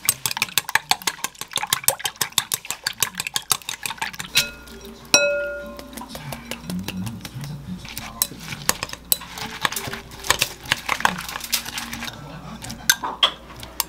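Two eggs beaten briskly in a glass mixing bowl, the utensil making rapid clicks against the glass. About five seconds in, glass strikes glass with a short ringing clink as shredded cabbage is tipped into the bowl. The cabbage is then stirred into the egg, with scraping and clinking against the bowl.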